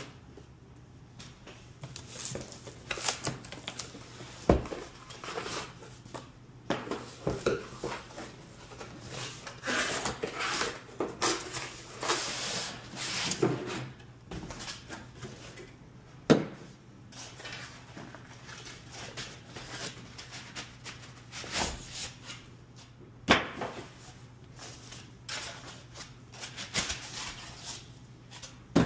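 Cardboard box and white foam packing inserts being handled during unboxing: irregular rustling and scraping, with three sharp knocks on a hard counter.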